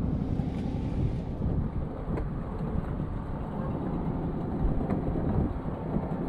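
Wind buffeting the microphone over a steady low rumble on the water, with a couple of light knocks about two seconds in and again near five seconds as people step from the wooden ladder into a small wooden boat.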